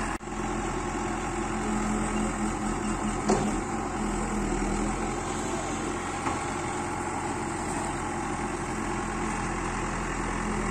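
An engine idling steadily with an even hum, and a single sharp knock about three seconds in.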